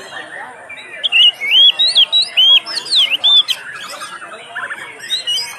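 Oriental magpie-robin (kacer) singing a lively run of short whistled notes that swoop up and down, loudest from about a second in to three and a half seconds, over softer background twittering.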